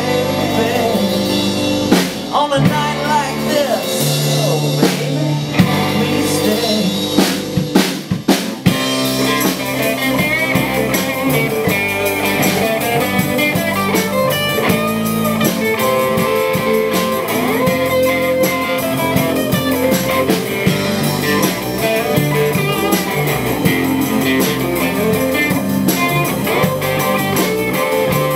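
Live band playing on electric guitars, acoustic guitar, bass guitar and drum kit. The sound grows fuller about nine seconds in.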